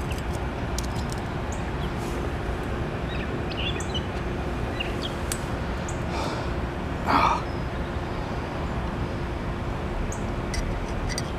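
Oxy-acetylene torch with a neutral flame burning with a steady rushing hiss as it heats thin mild steel. Scattered small clicks, and one short louder sound about seven seconds in.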